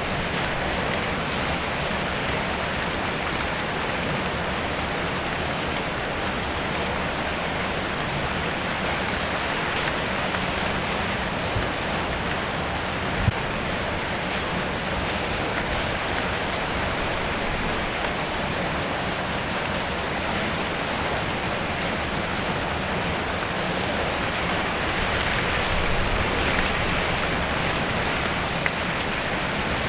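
Steady rain drumming on a car's metal roof, heard from inside the car: a dense even patter with a few louder single drops, one sharp tap about 13 seconds in.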